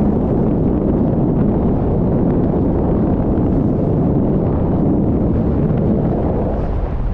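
Strong wind buffeting the microphone: a loud, steady low noise with no distinct strikes.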